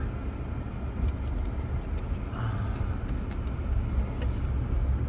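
Car interior noise while driving slowly: a steady low rumble of engine and tyres heard from inside the cabin, with a few faint scattered clicks.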